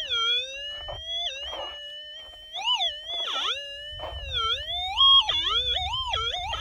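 Gold-prospecting metal detector's steady threshold tone, its pitch repeatedly swelling up and dipping down as the coil is swept over a target in the dug hole; about five seconds in the pitch jumps up and holds briefly. A low rumble joins in from about four seconds in.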